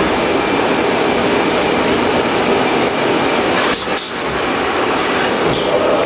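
Navona shopper bag making machine running at production: a steady, dense mechanical clatter and rumble, with a brief hiss a little before four seconds in.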